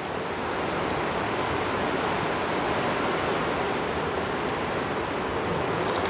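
Kitchen faucet running in a steady stream into a metal pot in a stainless-steel sink.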